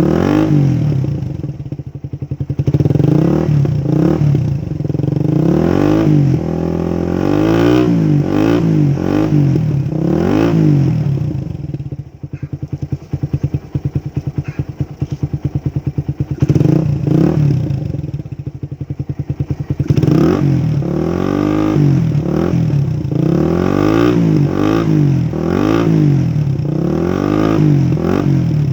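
Motorcycle with an Akrapovic 51 mm slip-on exhaust and a steel-wool-packed dB killer, revved in repeated throttle blips that rise and fall, settling to a pulsing idle for a few seconds around the middle before the blips resume.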